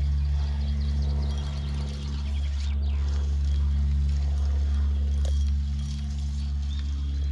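A steady low hum from a running motor.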